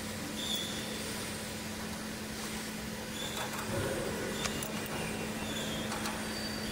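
Steady factory background noise with a constant low hum, a short high beep recurring every two to three seconds, and a few light clicks in the second half.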